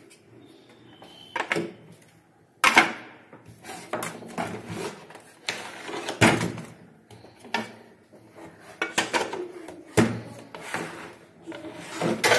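Plastic case and front cover of an APC Back-UPS being handled, turned over and set down on a wooden table: a run of knocks and clicks, the sharpest about 3, 6 and 10 seconds in.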